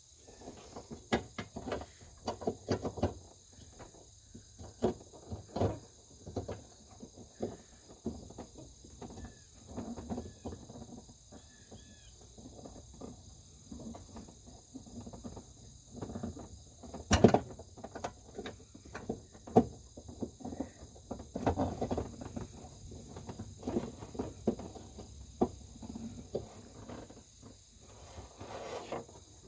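Hands working in a headlight housing: irregular plastic clicks, knocks and rustling as the turn-signal bulb socket is worked back in, with one louder knock a little past halfway.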